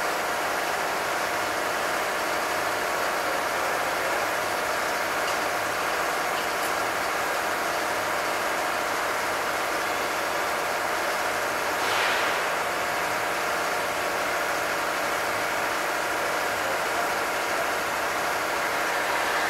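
Construction machinery engine idling steadily, with a short hiss about twelve seconds in.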